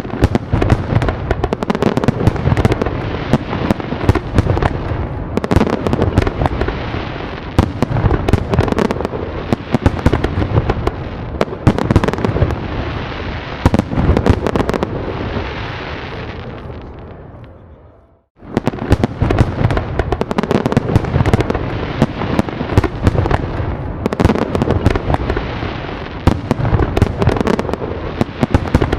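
Fireworks display: a dense, continuous barrage of sharp cracks, pops and low booms overlapping one another. About two-thirds of the way in, the barrage swells into a hissing crackle and fades away to a brief silence, then starts again abruptly, just as dense.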